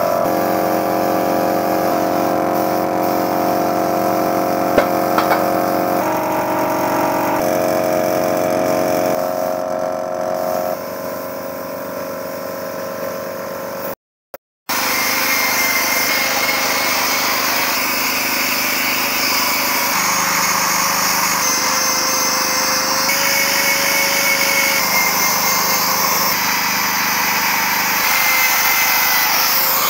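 Air compressor running steadily to feed a gravity-feed spray gun. A loud air hiss from the spraying fills the second half, after the sound drops out briefly about halfway.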